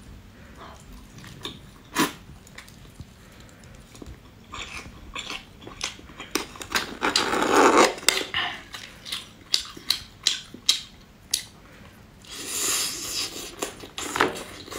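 Close-miked eating of crab legs: bites into the shell and chewing, heard as a string of short sharp clicks and cracks, with a longer, louder stretch of mouth noise about seven seconds in.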